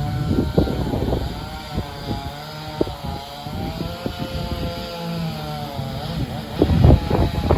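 Drone's propellers whining, the pitch wavering up and down as the motors adjust, over irregular low rumbling.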